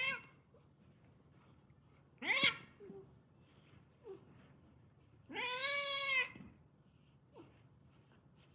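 A cat meowing three times: two short meows about two seconds apart, then a longer meow about five seconds in.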